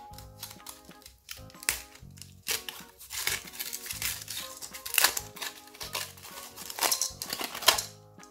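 Shiny crinkled wrapper being torn and peeled off a surprise egg: crinkling and tearing, light at first and then a dense run from a couple of seconds in until it stops just before the end. Background music plays throughout.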